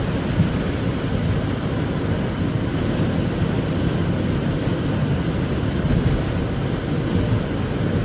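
Steady low rumble of road and wind noise inside a car's cabin as it drives over a snow-covered road in strong gusting crosswinds.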